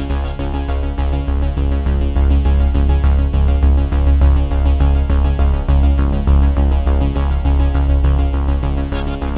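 Electronic background music with a synthesizer, a heavy steady bass and a regular beat.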